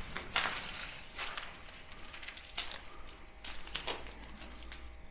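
About half a dozen scattered crunches and knocks, irregularly spaced, over a faint low hum.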